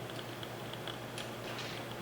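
Faint light clicks and ticks of small hardware being handled, over a steady low hum.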